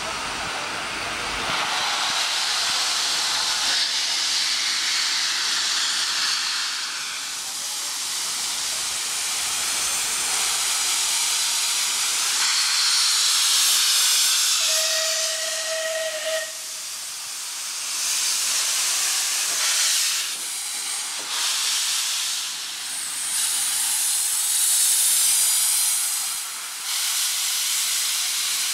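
Indian Railways WP-class 4-6-2 steam locomotive No. 7161 hissing loudly as steam vents from its cylinder drain cocks, in surges that rise and fall. A brief steady whistle tone sounds about halfway through, lasting under two seconds.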